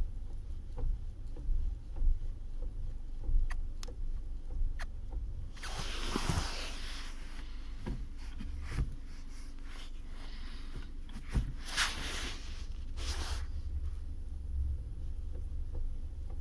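Volkswagen Polo's 1.6-litre four-cylinder engine giving a steady low rumble, heard from inside the cabin, with a number of short sharp knocks and clicks and a few bursts of hiss. The knocks fit the fault being recorded: a knock or thump in the drivetrain when the clutch is released.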